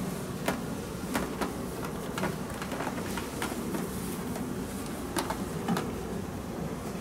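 Cloth rustling and scattered soft clicks as a shirt is worked onto a mannequin's shoulders under a sheet, over a steady low hum.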